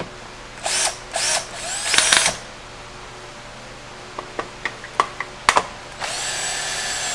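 Cordless drill-driver driving screws into a trolling motor's plastic head housing: three short bursts of motor whine, rising in pitch, in the first two and a half seconds, a few light clicks, then a longer steady run starting about six seconds in.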